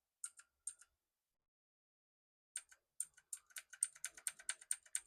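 Keys of a Jedel WKL102 mechanical keyboard being pressed: two clicks near the start, then after a pause of about two seconds a quick run of keystrokes, several a second, as the function key is held and the arrow keys are tapped.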